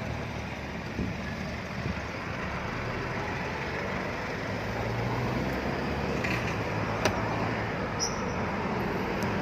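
Isuzu D-Max pickup with a 3.0 4JJ3-TCX diesel driving slowly: steady road and tyre noise over a low engine hum, with a few faint clicks. No brake squeal or hiss is heard; the noise is gone now that the brake pads and rotor have been sanded and the caliper pins greased.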